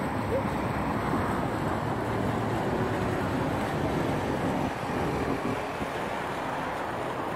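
Steady rushing outdoor noise of road traffic with wind buffeting the microphone.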